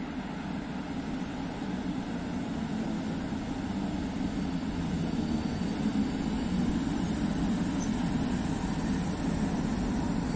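PKP class EU07 electric locomotive hauling passenger coaches slowly into the platform, a steady low running noise that grows gradually louder as it approaches.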